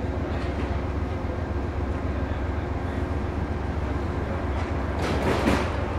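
Amtrak passenger train's cars rolling past, a steady rumble of wheels on rail, with a brief louder rush about five seconds in.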